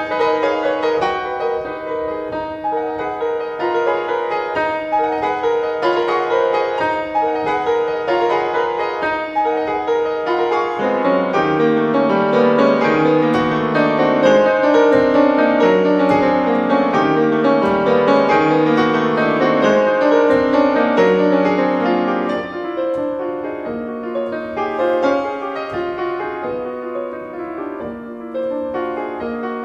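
Contemporary classical music played on a keyboard instrument with a piano sound: many held, overlapping notes. Lower notes join about a third of the way in, and the music is at its fullest through the middle before thinning out again.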